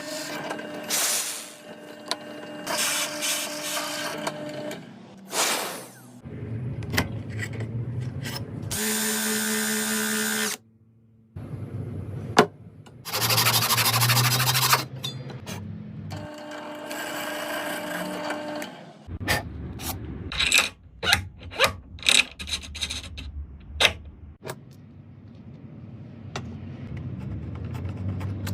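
Workshop power tools, chiefly a drill, running in short bursts that start and stop abruptly. They are interspersed with a run of sharp knocks and taps about two-thirds of the way through.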